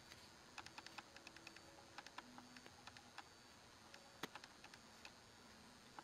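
Faint, irregular light clicks and ticks, several a second, with one sharper click about four seconds in: the hot tip of a fixed-tip woodburning pen stroking across carved tupelo wood.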